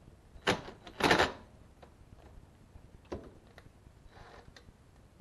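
Tools and metal parts clattering: two short rattles about half a second and one second in, the second louder, then a few light clicks.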